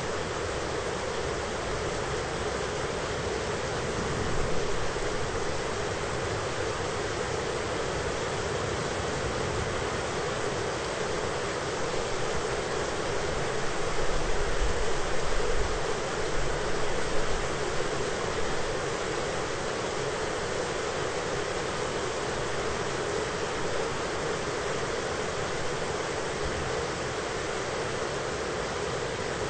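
Thunderstorm ambience: a steady rushing hiss of heavy rain, with a low rumble of thunder swelling about halfway through.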